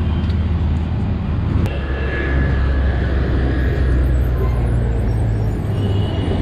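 Roadside traffic: a city bus's engine running close by as it pulls past, a steady low rumble that shifts in pitch a little under 2 s in, over general traffic noise.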